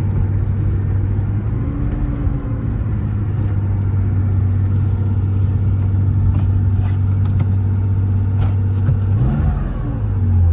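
1973 Porsche 911T's air-cooled flat-six engine running steadily at cruise, heard from inside the cabin with road and wind noise. Near the end the engine note rises briefly and then changes.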